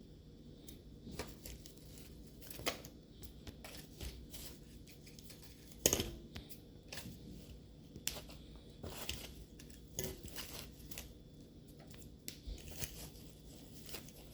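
Scattered small clicks, scrapes and rustles of hair being pulled and picked off a Roomba's brush roll and the plastic brush parts being handled, with one sharper click about six seconds in.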